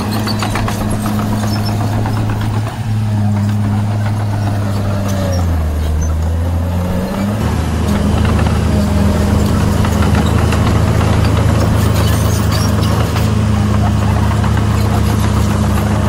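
Diesel engines of a small Komatsu bulldozer and a 5-ton dump truck running steadily, the bulldozer working under load. The engine note steps to a different pitch twice, at about five and a half and seven seconds in.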